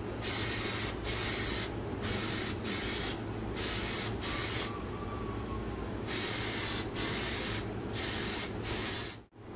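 Aerosol can of gunmetal gray Plasti Dip rubber coating spraying in short hissing bursts of about half a second, about ten in all, with a longer pause near the middle. These are the light passes of a second coat over a wheel rim.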